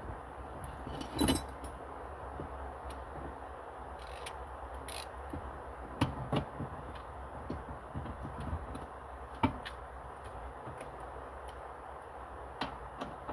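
Scattered clicks, clinks and light knocks of plastic dashboard parts and tools being handled in a stripped-out car interior, the loudest knock about a second in and others around six and nine and a half seconds in, over a steady background hiss.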